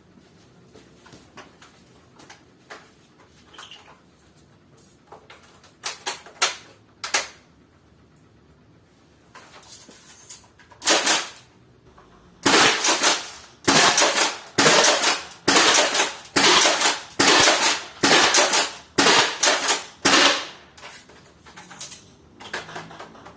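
6mm airsoft shotgun: a few light clicks, then about a dozen sharp shots in quick succession, roughly one every two-thirds of a second.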